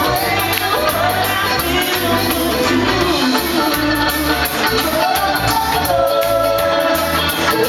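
Live band playing through a PA, with singers on microphones over electric bass and drums.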